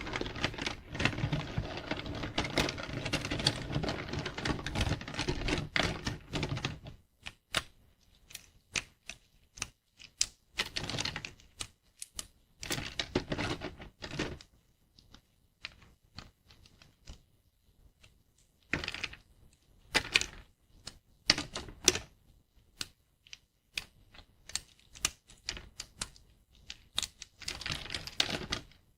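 Thin plates of dried soap being broken: dense crunchy crackling for about the first seven seconds, then sharp separate snaps and short crackly clusters.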